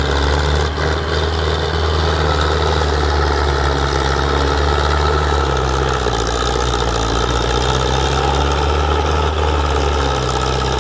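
Belarus tractor's diesel engine working hard under heavy load, pulling a fully loaded sugarcane trailer: a steady, low engine drone, with thick black exhaust smoke showing it near full load.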